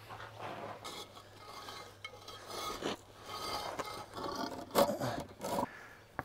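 Concrete cinder block and gritty sand scraping and rubbing as the block is shifted and bedded into the ground to level a plank, in irregular strokes, with a couple of louder scrapes near the end.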